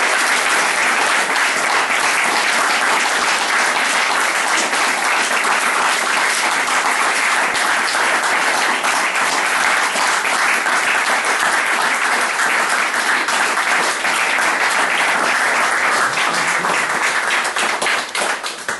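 Audience applauding, a dense, even clatter of many hands clapping that dies away near the end.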